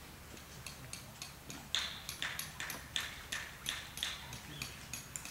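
A run of sharp taps at about three a second, loudest in the middle stretch and fainter at either end, typical of a hammer driving tent pegs.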